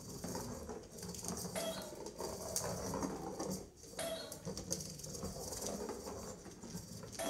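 Sphero robot ball driving across a hardwood floor: an uneven, scratchy rolling noise that dips briefly about four seconds in.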